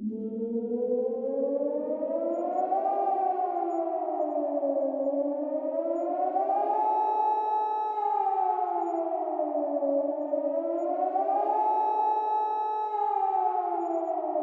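Civil defence warning siren wailing, the warning sound for a nuclear attack. It has two tones that rise and fall together in slow cycles of about four to five seconds, three times here, sometimes holding briefly at the top before falling.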